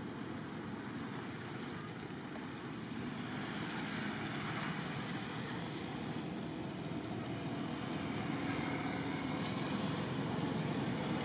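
Steady rumble of road traffic, growing a little louder over the last few seconds, with a brief click near the end.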